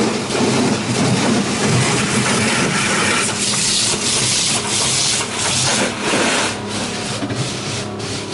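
PDQ Tandem automatic car wash heard from inside the car: water spraying on the body and cloth wash-brush strips rubbing across the glass, a dense steady wash with short slapping hits near the end.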